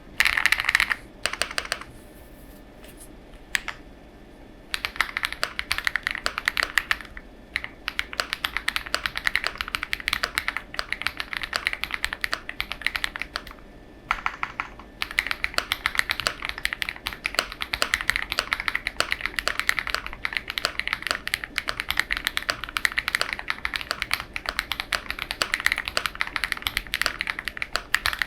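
Custom mechanical keyboard with lubed Huano Matcha switches, TX-tuned stabilizers, an FR4 plate and full foam being typed on in quick, continuous runs. The keystrokes thin out for a couple of seconds near the start and stop for about a second around the middle.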